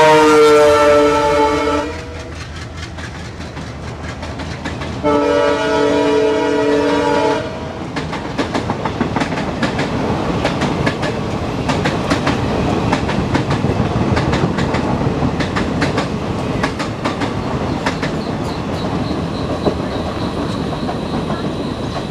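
WDM3A diesel locomotive's multi-tone horn sounding two long blasts, the first ending about two seconds in and the second a few seconds later; then the train's coaches roll past, wheels clicking over the rail joints.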